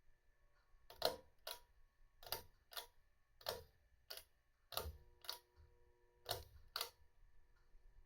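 Gulf Coast Bimini Breeze ceiling fan turning on low speed, ticking in pairs about half a second apart that repeat roughly every one and a half seconds.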